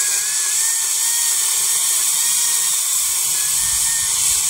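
Makita battery-powered electric chainsaw cutting through a maple limb: a steady high motor whine over the hiss of the chain biting wood, with a low rumble joining about three seconds in.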